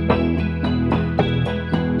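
Background instrumental music: electric piano or keyboard playing steady notes over a sustained low bass.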